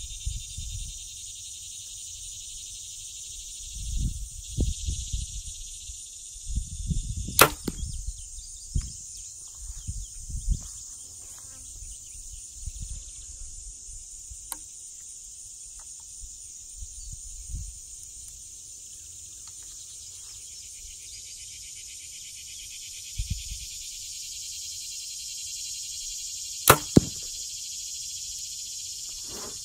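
Compound bow fitted with a TightSpot quiver, shot twice: a short sharp snap of the string on release about seven seconds in and again near the end, the shots pretty quiet. Insects chirr steadily throughout, with a few dull low bumps between the shots.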